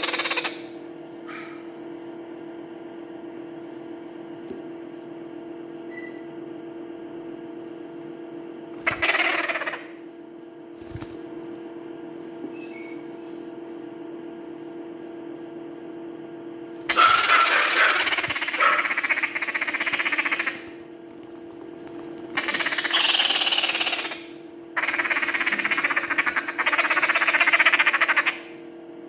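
Month-old parrot chicks giving noisy begging calls while being hand-fed cornmeal porridge, in four bursts of one to about three seconds, the last two close together near the end. A steady hum runs underneath.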